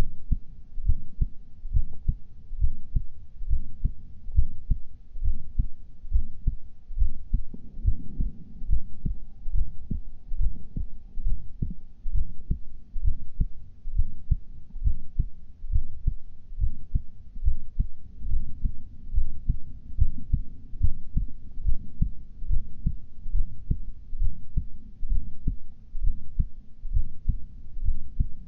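Heart beating at rest in a steady rhythm of low thumps, in which the uploader thinks he hears a systolic murmur.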